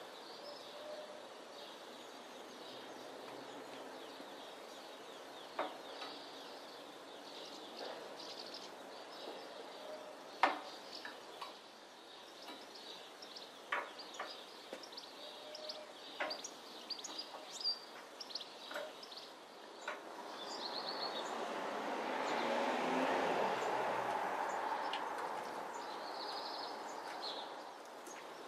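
Scattered light metallic clicks and knocks from hand work fitting a motorcycle's cast-iron stand, with birds chirping in the background. In the second half a rushing noise swells up over a few seconds and fades away again.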